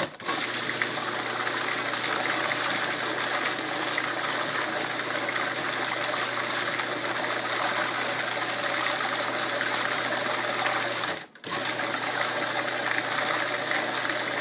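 Electric blender running steadily, blending banana, yogurt and pear into a smoothie; it cuts out briefly about eleven seconds in and starts again, as it is pulsed.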